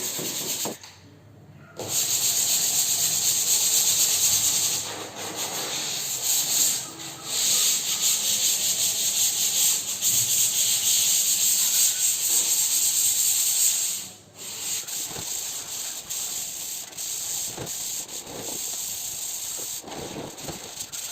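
Sandpaper rubbed by hand over dried wall putty on a gypsum ceiling: a steady scratching hiss, with short breaks about a second in and at about fourteen seconds.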